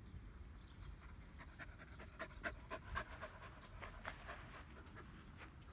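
Black Labrador retriever puppy panting quickly and faintly, about three to four breaths a second, hot from the sun and the retrieving work.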